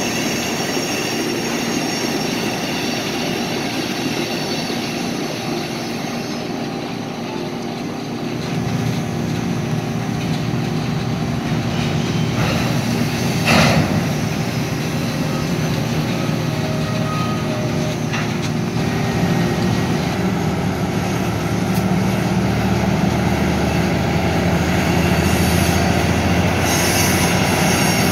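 Covered hopper cars rolling slowly on jointed track during a switching move, wheels squealing and clacking on the rails. One sharp knock comes about halfway through. A locomotive's diesel engine drones underneath and grows louder in the second half.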